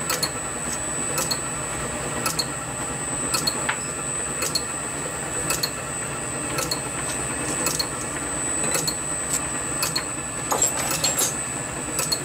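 Steady machine hum with a high, constant whine and a light tick repeating about every three-quarters of a second.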